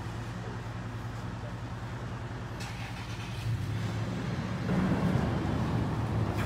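A vehicle engine running steadily with a low hum, getting louder about three-quarters of the way through.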